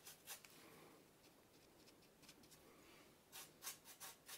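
Faint scratchy strokes of a small paintbrush dry-brushing light paint over the edges of a carved Styrodur foam rock face. A few light strokes come at first, then a quicker run of about four strokes a second from about three seconds in.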